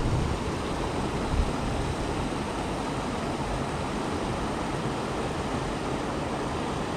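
Creek water spilling over a small concrete weir: a steady, even rushing noise, with one brief soft bump about a second and a half in.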